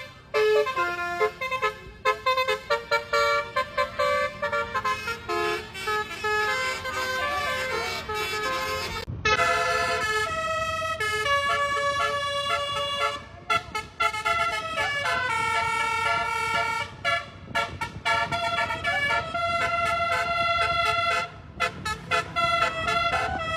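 Bus telolet horn, a multi-tone 'basuri' musical horn, played in quick melodic phrases of stepped notes, with a few short breaks between phrases.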